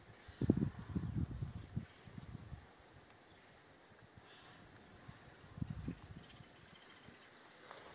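A steady, high-pitched insect chorus, with low, irregular rumbling bursts during the first couple of seconds and again around six seconds in.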